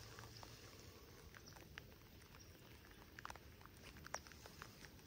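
Light rain pattering faintly, heard as a soft steady hiss with scattered irregular drop ticks, a few of them louder a little past the middle.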